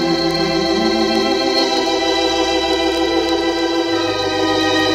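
Wurlitzer theatre pipe organ, a three-manual, fourteen-rank instrument, playing full sustained chords while the bass notes move underneath, changing about a second in and again near four seconds.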